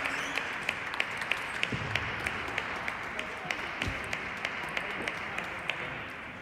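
Table tennis balls clicking off bats and tables, many scattered sharp ticks at irregular spacing, over a steady hiss of hall noise that eases slightly near the end.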